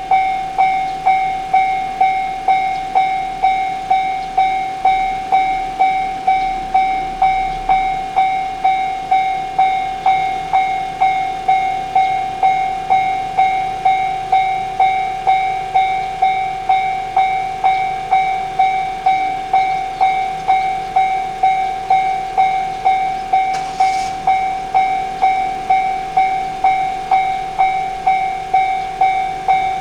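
Japanese railroad crossing warning bell ringing steadily at an even pace of about two dings a second, each ding a single bright tone that rings and fades.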